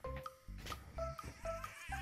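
Background music: a steady rhythm of short, repeated notes over a bass line.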